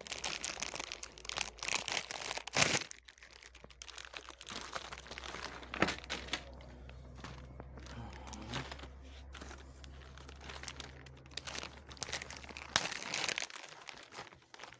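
Plastic wrapping crinkling and rustling in bursts as a new cabin air filter is unwrapped, with a few sharp tearing sounds, the loudest about two and a half seconds in and near six seconds. A faint low hum underneath stops near the end.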